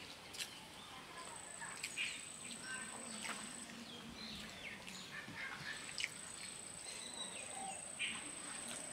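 Quiet eating with the fingers: rice being mixed and chewed, with a few short smacks. Behind it, birds chirp and an insect keeps up a steady high whine that stops for about a second and a half near the middle.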